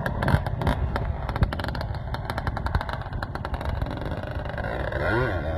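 Honda CR500 single-cylinder two-stroke dirt bike engine running hard with rapid, crackling pops. Guitar music comes in about four and a half seconds in.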